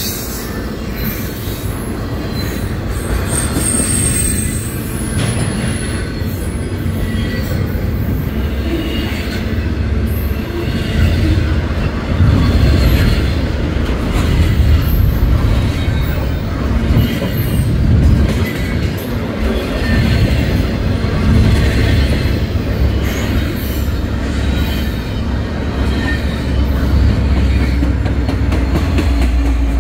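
Double-stack container train rolling past close by: a steady, loud rumble and clatter of wheels on the rails, with a brief high wheel squeal a few seconds in. Near the end, the low rumble grows as the train's diesel locomotives draw near.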